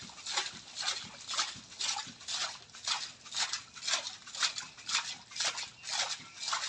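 Tubewell pipe being worked up and down by hand on a bamboo lever to sink the well, a rhythmic splashing stroke about three times a second as water and mud are pushed up through the pipe.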